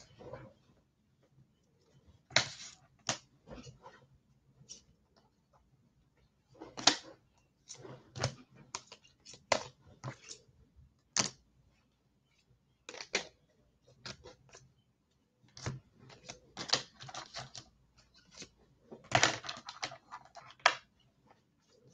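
Typing on a computer keyboard: irregular clusters of key clicks with short pauses between them.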